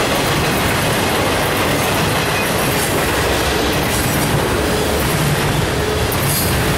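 Freight cars of a passing Norfolk Southern mixed freight train, mostly covered hoppers, rolling by close to the track: steady, loud wheel-on-rail noise.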